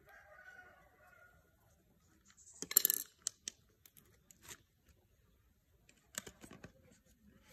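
Hard plastic clicks and rattles from an angle grinder's rear housing being twisted and worked loose by hand: a loud clattering burst about three seconds in, then single clicks and another cluster of clicks near the end.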